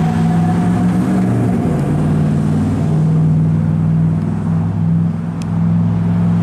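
A road vehicle's engine running with a steady low drone, with the tail of a siren dying away at the start.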